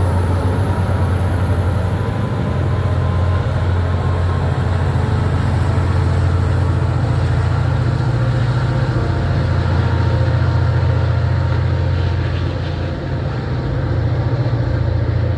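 An MBTA commuter train's diesel locomotive running steadily as the train moves, with a deep, even drone and a faint high whine that rises slightly.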